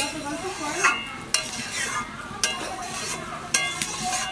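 A long metal spatula stirring a thin, watery curry in a metal kadai, scraping through the liquid and clinking sharply against the pan about five times.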